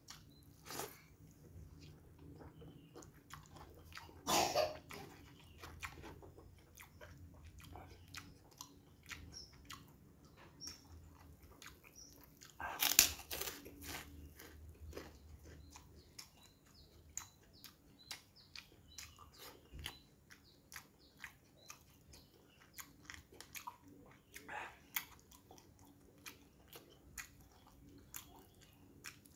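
Close-up eating sounds from a person eating rice by hand: soft chewing and mouth clicks throughout, broken by loud crunchy bites of a kerupuk cracker, once about four seconds in and loudest around thirteen seconds in.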